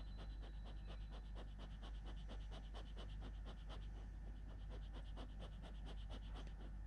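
Kelpie panting fast, about five short breaths a second, which stop near the end: stress panting from storm anxiety.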